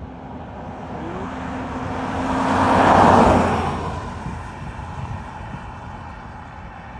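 A road vehicle passing by: its noise swells to a peak about three seconds in, then fades away.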